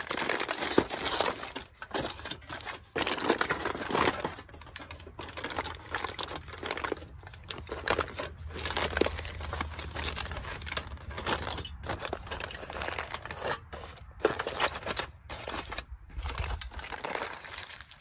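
Aluminium foil crinkling and rustling in irregular bursts with brief pauses as it is folded by hand around a stuffed bell pepper.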